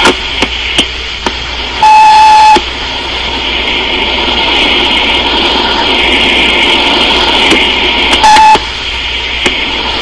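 Answering-machine beep tones, each marking the start of a new message: one steady beep just under a second long about two seconds in, and a shorter one about eight seconds in. Between them, loud hiss of an old tape and phone line, with a few sharp clicks near the start.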